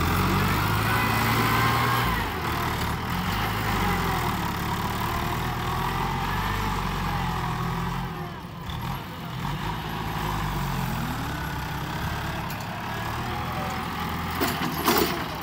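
New Holland TS90 tractor's diesel engine running under load as the tractor drives over dirt mounds, its note rising and falling. A few sharp knocks come near the end.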